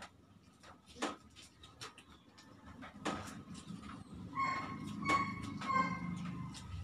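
Close mouth smacks and clicks of people eating with their hands. From about four seconds in, a dog whines in a run of short high notes.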